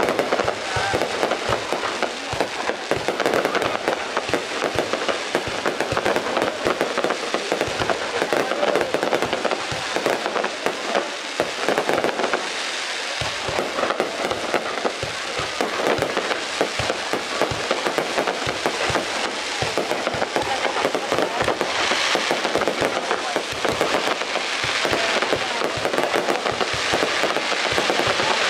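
Fireworks going off without pause: a dense, continuous crackle of many small bursts at a steady level.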